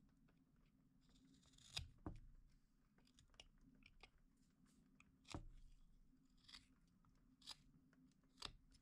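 Carving knife slicing thin chips from a small wooden block: faint scraping cuts and crisp snaps of wood, about half a dozen strokes with pauses between.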